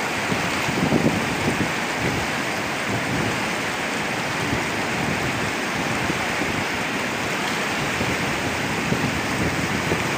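Swat River in flood: fast, turbulent whitewater rushing past, a steady, unbroken noise of a river in spate.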